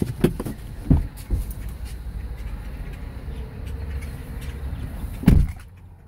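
Low rumble of a car heard from inside the cabin as it moves slowly, with a few dull thumps, the loudest about five seconds in.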